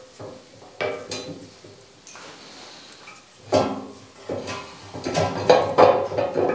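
Heavy steel parts clanking and clinking as a pin is worked into the hydraulic cylinder clevis on the forge press's top die holder: a couple of knocks in the first second and a half, then a quick run of ringing metal clanks from about three and a half seconds in.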